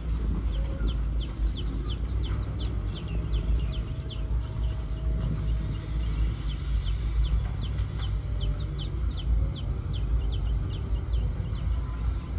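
A bird calling in two long runs of short, high chirps that fall in pitch, about four or five a second, over a steady low rumble.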